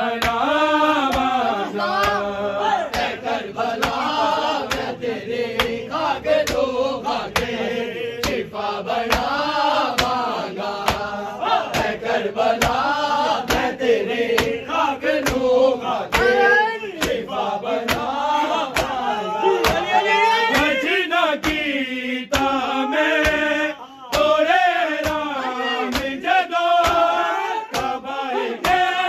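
Male voices chanting a noha, a Shia lament, over a crowd. The chant is struck through by an even beat of sharp slaps, a little under two a second: the mourners' rhythmic chest-beating (matam).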